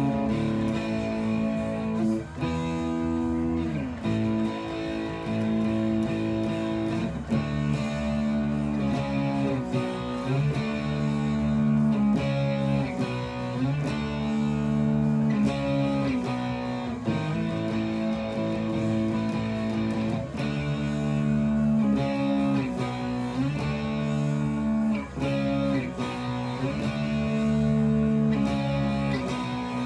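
Electric guitar, a Fender Vintera '60s Telecaster through a Fender Mustang GT40 amp on its "Brit Color" crunch preset, strumming a steady run of distorted chords that change every second or so.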